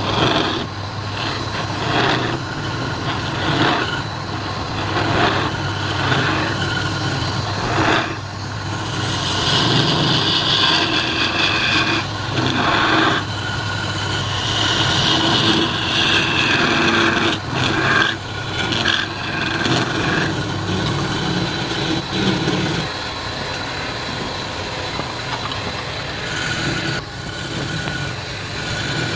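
Wood lathe motor running with a steady hum while a hand-held chisel cuts into the spinning wooden blank. The cut makes a rasping, scraping sound that comes and goes, loudest about ten and sixteen seconds in.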